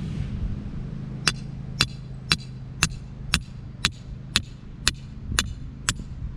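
Small sledgehammer striking the top of a rebar stake, driving it into the ground: sharp metal-on-metal blows with a bright ring, about two a second, starting about a second in. A steady low hum sits underneath.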